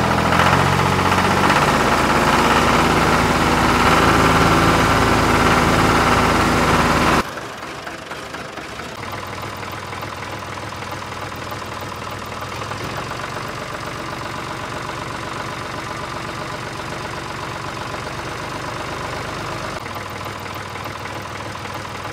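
Tractor engine idling with a knocking beat, loud for about seven seconds, then dropping suddenly to a quieter steady engine sound.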